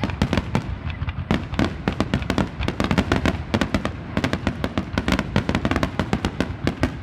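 Fireworks crackling: a dense, unbroken run of sharp pops and bangs, many a second, irregular in rhythm.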